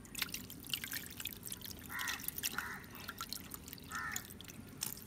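Water dripping and splashing from a hand net full of live molly fish as it is held over the pond and dipped back in: a run of small, irregular drips and splashes.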